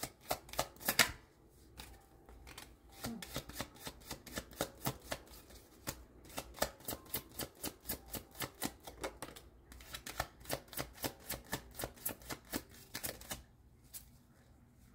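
Tarot cards being shuffled by hand: a quick run of light papery card clicks, several a second, easing off briefly about a second in and falling quiet near the end.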